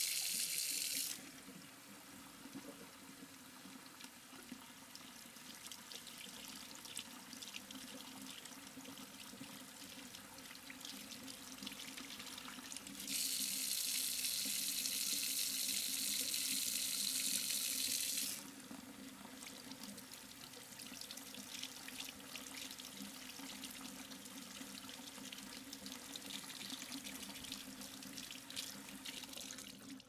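Water running into a surgical tray: a strong, hissing stream for about the first second, then a thinner trickle with small splashes and drips, a strong stream again from about 13 to 18 seconds in, then trickling and dripping to the end.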